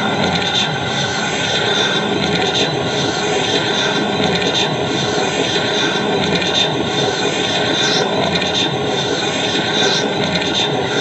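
Harsh noise music: a dense, steady wall of distorted noise, with a faint swell about every two seconds.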